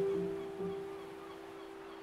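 Soft instrumental background music: a held note at the start and another about half a second in, both fading away.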